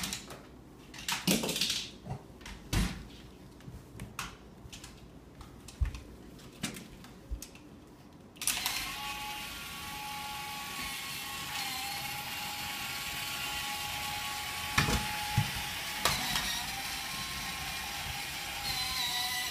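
Scattered knocks and clicks of a door being handled, then, about eight seconds in, a remote-control Hot Wheels toy car's small electric motor and gears start up suddenly and whir steadily, with a couple of knocks over it.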